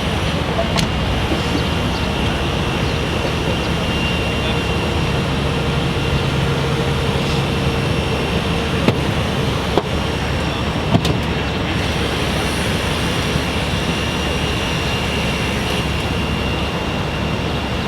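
Engines running steadily, with a faint high whine held throughout and a few sharp knocks around the middle.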